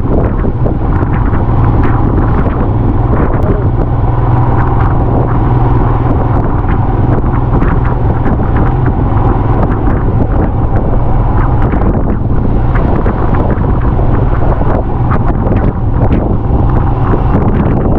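A vehicle on the move: a steady low engine drone under heavy wind noise buffeting the microphone, with scattered small knocks.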